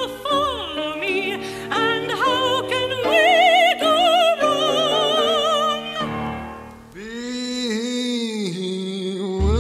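Operatic singing with a wide, fast vibrato on high notes, giving way after about six seconds to a long held lower note that bends slightly in pitch.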